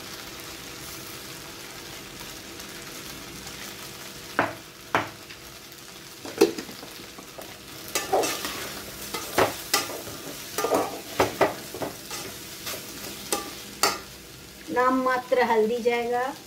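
Rice frying in a steel pot with a steady sizzle. From about four seconds in, a long steel spatula stirs it, clinking and scraping against the pot many times. A brief voice-like sound comes near the end.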